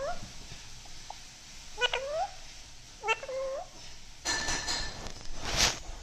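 Alexandrine parakeet giving three short calls that rise in pitch, about a second and a half apart. Near the end comes a stretch of rough, noisy sound ending in a brief loud burst of hiss-like noise.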